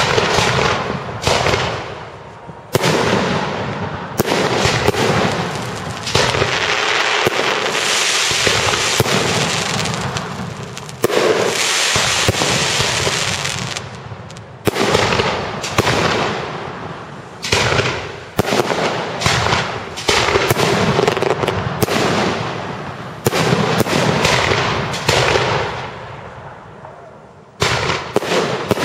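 Aerial firework shells bursting one after another in a display, each a sharp bang coming every second or two. Between the bangs a dense hiss from the burning star and tail effects fills the gaps, running longest through the middle of the stretch.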